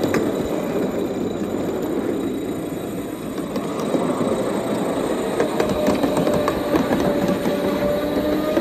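Ride-on miniature railway train rolling on its steel track, a steady rumble with scattered clicks of wheels over rail joints. From about five seconds in, a thin wheel squeal rises slowly in pitch as the train takes a curve.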